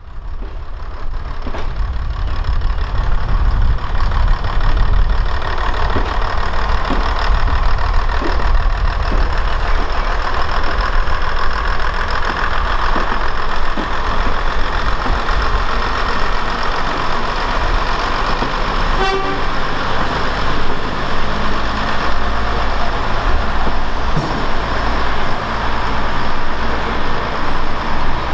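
Heritage first-generation diesel railcars' engines running with a steady deep rumble, with horn toots.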